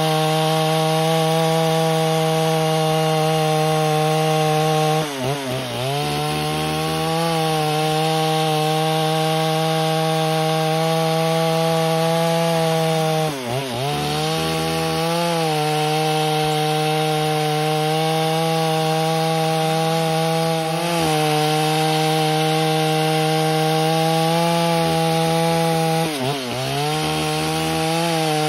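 Stihl 038-clone two-stroke chainsaw running hard while ripping lengthwise through a beam of dry, tough timber: a steady high engine note with the chain cutting wood. Three times the engine pitch drops sharply and comes back within about a second.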